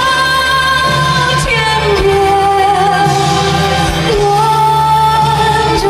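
A man singing a slow song in a high, clear voice, holding long notes with vibrato over instrumental accompaniment, changing note about every two seconds.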